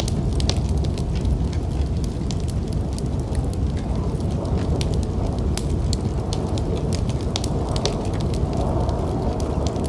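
Wood fire crackling in a fireplace, with many sharp irregular pops, over a steady low rumble of snowstorm wind.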